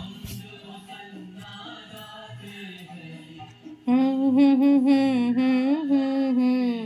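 Quiet background music, then about four seconds in a much louder voice comes in, singing long held, wavering notes in a chant-like melody.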